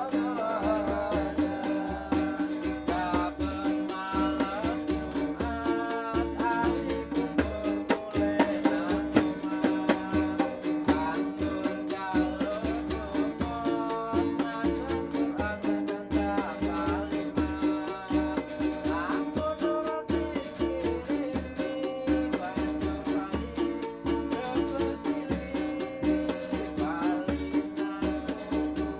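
Music: a melody over a steady drum beat, with a shaker rattling on every beat.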